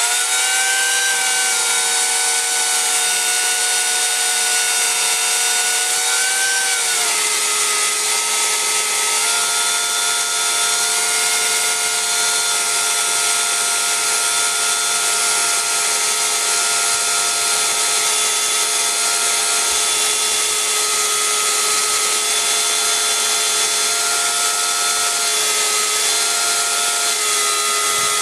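Electric chainsaw with an Oregon PowerSharp chain, mounted in an Alaskan-style chainsaw mill, running and ripping lengthwise through a log with a steady high motor whine. Its pitch drops slightly about seven seconds in as the chain takes the load of the first cut.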